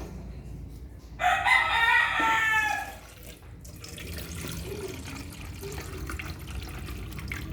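A rooster crows once, about a second in, for just under two seconds. Water pours or runs into a bottle sterilizer around it.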